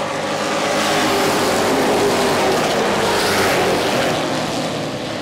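A pack of Pro Truck race trucks running past on the oval. Their combined engines swell to a peak about a second in and fade as the field moves on, after about four seconds.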